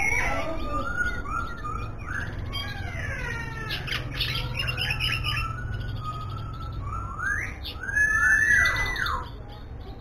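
A caged songbird singing a varied song of short, sliding whistled notes mixed with a few harsh chattering notes, with a louder whistled phrase that rises and falls about eight seconds in.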